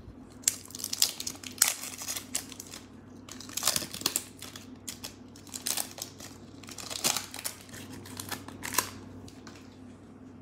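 A Topps Stadium Club trading card pack's wrapper being torn open by hand, crinkling and tearing in a run of short bursts that stop about nine seconds in.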